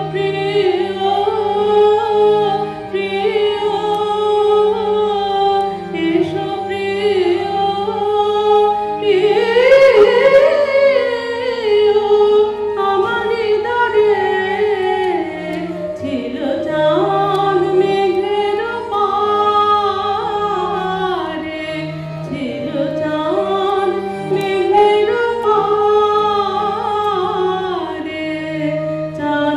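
A woman singing a Bengali song with harmonium and esraj accompaniment. The melody slides and wavers over steady, sustained harmonium notes.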